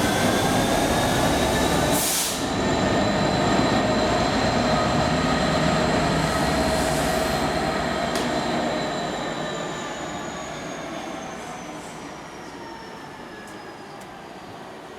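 A train running through the station and moving away, a heavy rumble with steady high-pitched whining tones above it, fading over the second half. A short burst of noise stands out about two seconds in.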